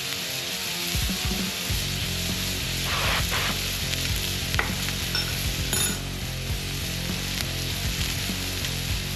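Hot oil sizzling steadily in a cast-iron skillet as a sesame-crusted tuna loin sears and loose sesame seeds fry in the oil.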